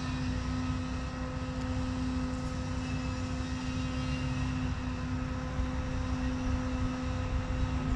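A steady, even-pitched mechanical hum with a low rumble beneath it, holding the same pitch throughout.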